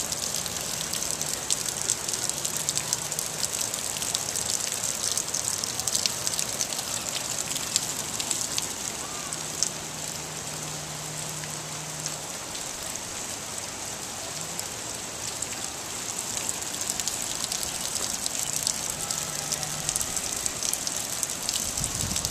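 Heavy rain falling: a steady dense hiss of countless fine drop impacts, with a faint low hum coming and going underneath.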